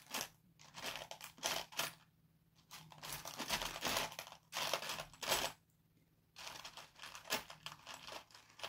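Crinkling, rustling handling noise in several irregular bursts with short quiet gaps, from hands working with craft materials at the table.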